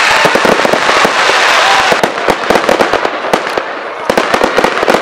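Fireworks: a dense crackling hiss for about the first two seconds, then a rapid run of sharp bangs and crackles from bursting shells.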